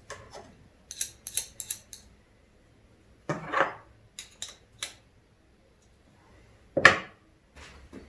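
Short, sharp clicks and clinks of small hard objects being handled and set down on a workbench, with a quick run of clicks about a second in and two louder knocks about three and seven seconds in.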